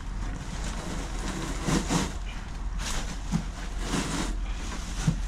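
Old, wet boat carpet being tugged at and pulled up: a few short rustling, scraping bursts roughly a second apart, over a steady low hum.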